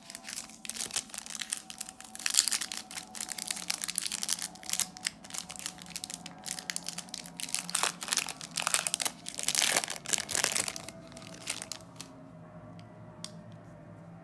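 Foil wrapper of a Garbage Pail Kids trading-card pack crinkling and being torn open by hand, in a dense crackle that is loudest about two seconds in and again around eight to eleven seconds, dying down near the end.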